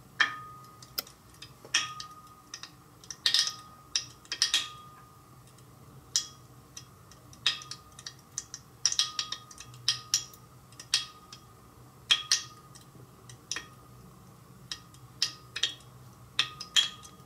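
Irregular sharp pops of tiny explosions as blobs of manganese heptoxide, formed where potassium permanganate meets concentrated sulfuric acid, float up and ignite the ethanol in a glass beaker. The pops come one to three a second, some in quick clusters, and several leave a short faint ringing tone.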